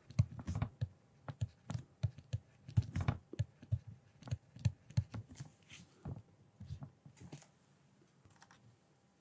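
A stylus tapping and scratching on a tablet screen during handwriting: a run of small, irregular clicks that stops about seven and a half seconds in.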